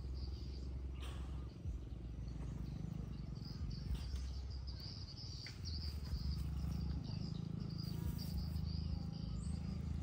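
Insects chirring steadily on one high note, over a low rumble on the microphone, with a few faint clicks.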